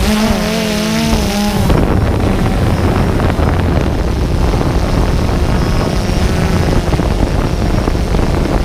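An engine running. About two seconds in, the sound changes abruptly from a steadier drone with wavering pitched tones to a low, rough rumble.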